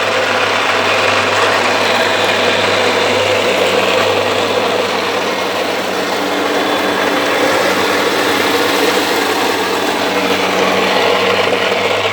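Double-roll soybean dehulling machine running steadily while it strips the skins off the beans, a continuous hum under a steady rushing noise.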